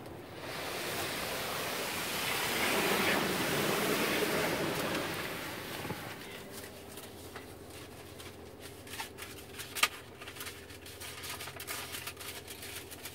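Ryko SoftGloss Maxx 5 soft-cloth car wash working over the car, heard from inside the cabin. A swelling hiss of spray and spinning cloth brushes peaks a few seconds in and fades by about six seconds. Scattered slaps and taps of the cloth strips on the body follow, with one sharp knock near ten seconds.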